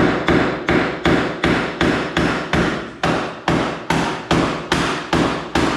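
A hammer striking metal in a steady run of blows, about two and a half a second, beating on a stuck bolt on the pickup's cab mounting to knock it loose.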